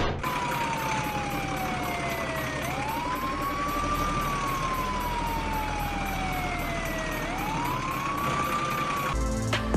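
Electronic siren wail: a tone that slides slowly down and then sweeps quickly back up, twice, over a steady hiss. Music cuts in near the end.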